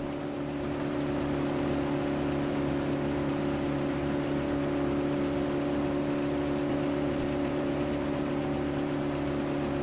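Dubbed locomotive engine running with a steady drone, several constant tones holding the same pitch throughout.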